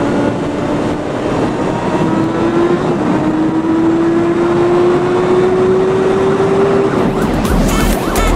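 Honda CBR600F4i sportbike's inline-four engine pulling under acceleration on the road, its pitch climbing steadily with a short dip about three seconds in. Near the end, music with a low beat and a wailing siren-like sound comes in.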